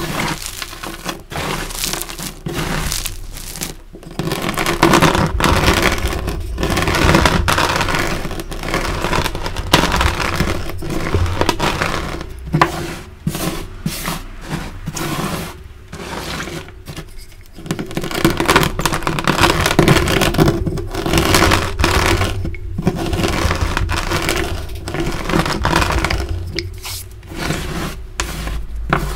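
Hands sweeping and pressing through a pile of crushed dyed gym chalk chunks and powder: a continuous gritty scraping and crunching, broken by short pauses every few seconds.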